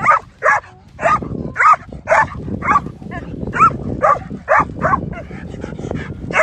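Young dog barking and yelping in high-pitched, rapid calls, about two a second, with a brief lull near the end. This is the frantic, over-aroused barking of a dog lunging on its lead at a passing cyclist, from a dog with no impulse control that chases anything moving.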